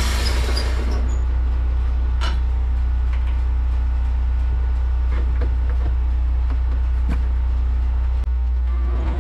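Wood-Mizer LT15 sawmill's engine idling steadily, the blade not cutting. A higher hiss dies away in the first second, and a few light knocks come from gear being handled.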